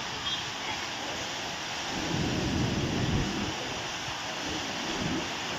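Heavy rain falling, a steady hiss, with a low rumble swelling about two seconds in for about a second and again briefly near the end.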